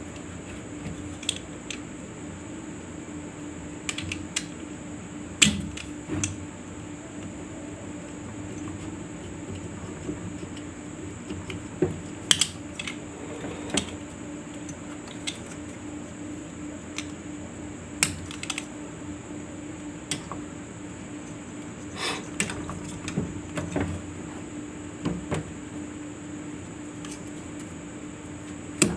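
Scattered clicks, taps and light knocks of hands and tools working on a bare electric fan motor while its tied wiring is taken apart, over a steady background hum.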